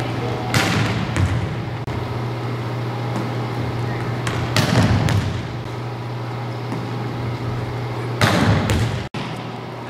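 Volleyball being struck in a reverberant gym: three sharp hits of the ball about four seconds apart, the last and loudest as the hitter spikes near the end, over a steady low hum.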